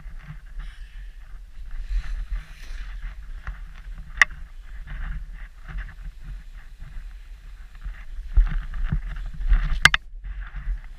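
Sliding down through deep powder snow: a steady rush of snow hissing under the feet, with low wind rumble on the microphone. There are two sharp clicks, one about four seconds in and one near the end, amid a louder stretch of churning snow.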